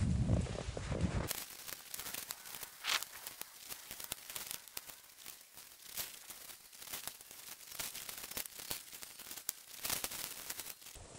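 Spruce boughs rustling and crackling as an armload is carried through snow and laid onto the wikiup's pole frame, with many sharp twig snaps. A low rumble at the start cuts off abruptly about a second in.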